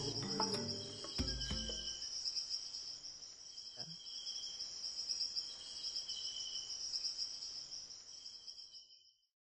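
Insects chirring steadily, a continuous high drone with a lower pulsing trill that comes and goes, fading out near the end. The closing music ends about two seconds in.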